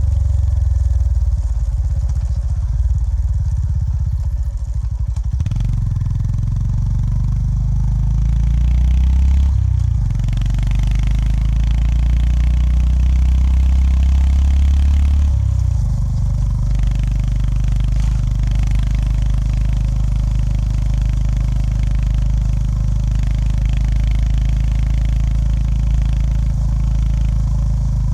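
Honda GB350S's single-cylinder engine running under way, heard from the rider's seat. The engine note changes abruptly about five, ten and fifteen seconds in, as with gear changes, and swells and slowly climbs between the second and third change as the bike pulls.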